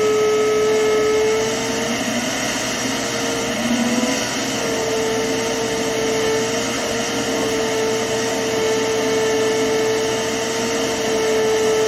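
Steady machine whine over rushing air noise. It starts abruptly, dips briefly in pitch about two and four seconds in, and cuts off suddenly at the end.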